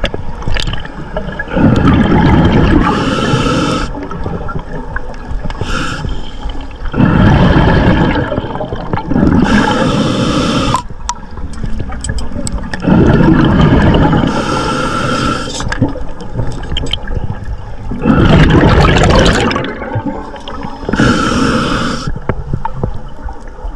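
Underwater water noise on the camera: bursts of rushing, bubbling water every few seconds, with gurgling between them.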